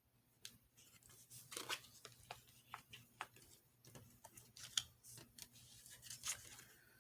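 Faint scattered rustles and light clicks of tarot cards being handled, a few louder taps near the end.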